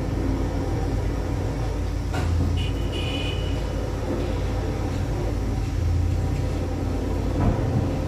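Steady low mechanical drone of a crane's machinery while it carries a suspended load of about three tons, with a short high beep about three seconds in.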